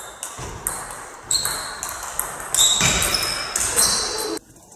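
Table tennis rally: the ball clicks in quick succession off bats and table, each hit leaving a short high ping that rings in the hall, with a few heavier thuds mixed in. The sound drops away abruptly near the end.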